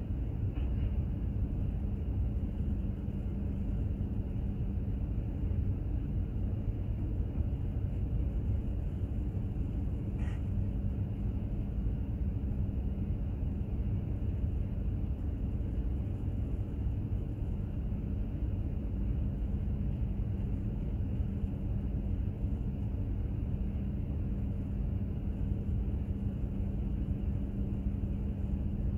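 Container ship under way: a steady low rumble of the engine and hull, with a constant low hum from its machinery.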